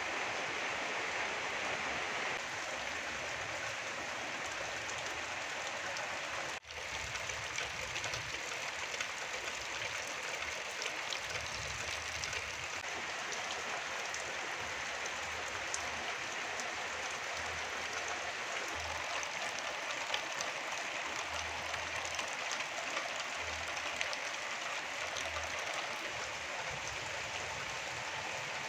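Steady rain falling on garden plants and ground, with fine ticks of individual drops. The sound breaks off for an instant about six seconds in.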